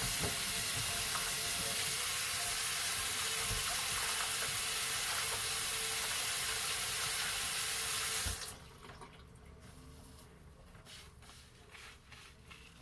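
Kitchen faucet running water into the sink in a steady rush, shut off abruptly about eight seconds in, followed by a few faint clicks.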